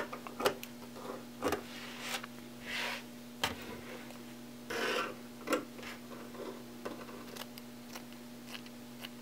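Scissors cutting through wig-making net: irregular sharp snips and clicks, with a few short rasping cuts, over a faint steady hum.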